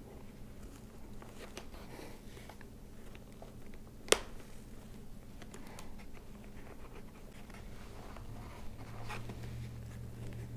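Hands working a helmet's fabric cheek pad and liner into place: faint rustling and scratching with scattered small clicks, and one sharp click about four seconds in.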